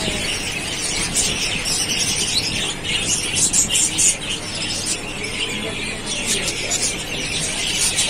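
Dense, continuous high-pitched chatter of many caged small birds, budgerigars among them, chirping all at once.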